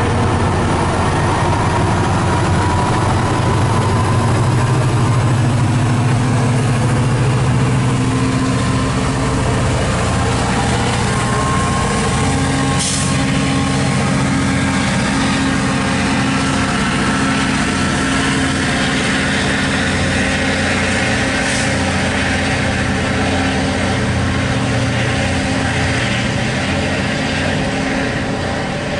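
MARC commuter train's diesel locomotives running under power as the train rolls by: a steady low diesel engine drone. The rear MP36PH-3C locomotive works hard as the train pulls away, putting out black exhaust smoke, with two brief clicks midway.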